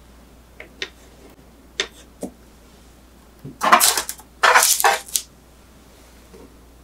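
Metal kitchen tongs clicking on a baking tray and scraping over the baking paper as baked sweet potato slices are lifted off: a few light clicks, then two louder scraping rustles about midway.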